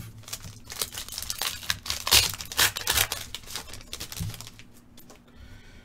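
Foil wrapper of a 2020 Panini Phoenix football card pack crinkling and tearing as it is opened, a rapid run of crackles that dies away about four and a half seconds in.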